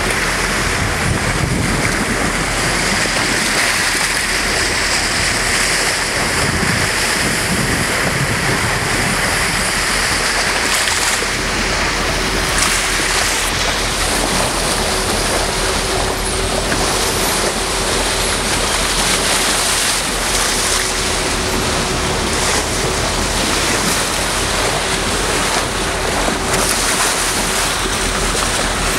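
Steady rush of water along the bow of a boat under way, with wind on the microphone and a thin, steady hum underneath.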